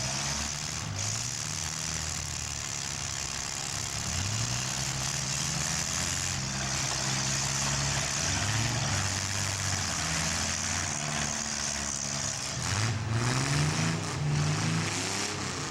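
Demolition derby mini car engines running and revving, the pitch rising about four seconds in and again near the end.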